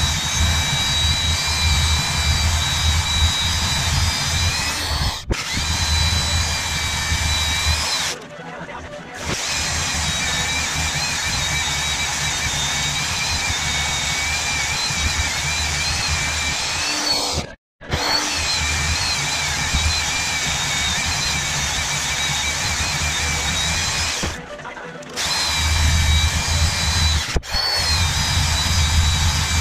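Electric power tools working steel: an angle grinder and then a portable band saw run and cut. Their motor whine wavers as the load changes, broken by a few short drops.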